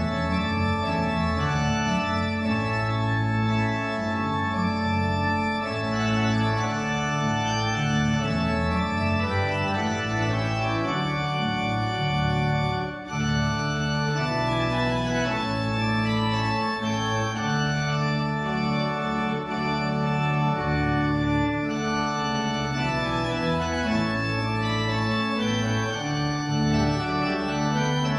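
Background music: an organ playing sustained chords that change every second or two.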